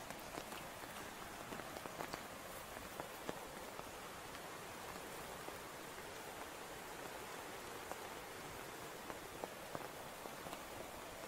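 Rain falling steadily, no longer heavy: an even hiss with scattered sharp drop ticks.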